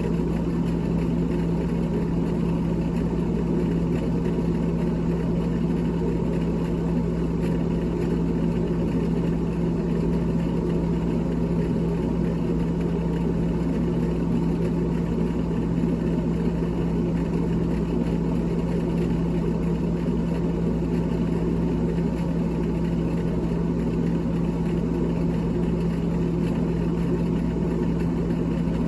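A steady, unchanging machine hum with a strong constant low tone, typical of an electric motor running.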